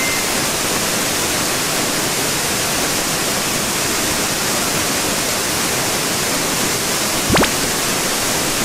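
Steady, even rushing outdoor noise like running water. About seven seconds in comes a short knock as a small ceramic coffee cup is set down.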